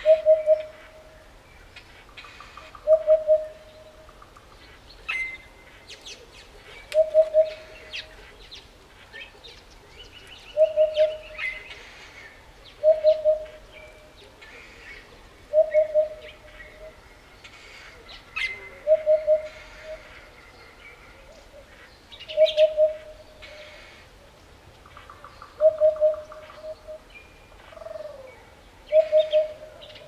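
Eurasian hoopoe singing its typical song: mellow, low 'hoo-poo-poo' phrases of about three quick notes, repeated roughly every three seconds. Other small birds chirp faintly at a higher pitch in between.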